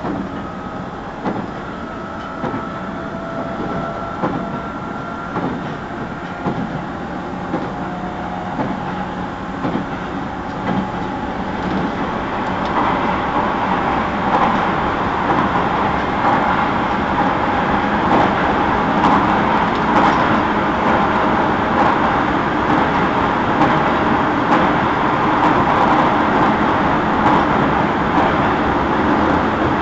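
Onboard running sound of a JR 211 series 5000-number electric multiple unit, heard inside the motor car KuMoHa 211-5009: a steady rumble of wheels on rail with a faint motor and gear whine. The noise grows louder from about a third of the way in as the train gathers speed.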